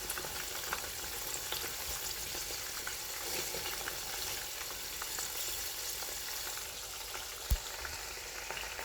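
Food deep-frying in hot oil: a steady sizzling hiss dotted with many small crackles and pops. One dull thump sounds about seven and a half seconds in.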